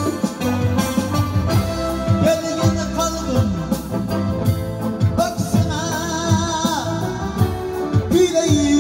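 Live Uzbek folk music: a long-necked lute, a doira frame drum and an electronic keyboard playing together, with a male voice singing.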